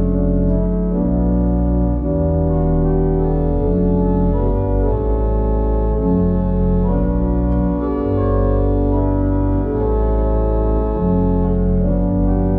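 Pipe organ playing a plainchant accompaniment: sustained full chords that change every second or two over deep pedal bass notes.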